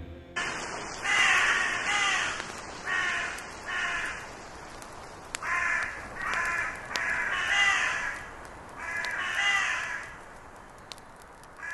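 Crows cawing: about ten harsh caws, mostly in pairs, with gaps of a second or two between the pairs, over a steady background hiss.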